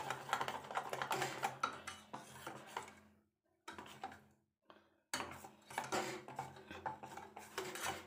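Wire whisk beating semolina batter in a metal bowl: rapid clinking scrapes of the wires against the bowl. The beating breaks off about three seconds in and picks up again about two seconds later.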